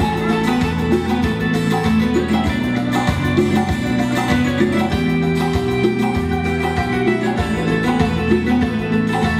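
A live band plays an instrumental passage: acoustic guitar, electric guitar and keyboard over a steady, even beat.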